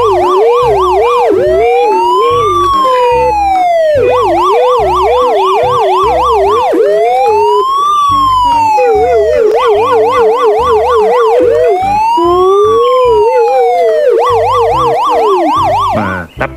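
A battery-powered toy police car's electronic siren. Slow rising-and-falling wails alternate with fast warbling yelps over a lower pulsing tone, and the cycle repeats about every five seconds. It cuts off just before the end.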